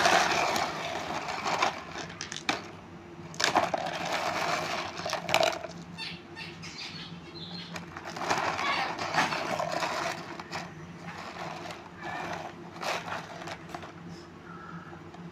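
Small stones being handled: sharp clicks as stones knock against each other, with stretches of rattling and scraping as they are shuffled and rubbed together.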